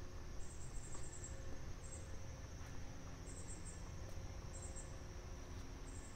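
Insects chirping in short, high-pitched bursts that repeat irregularly about once a second, over a low steady rumble.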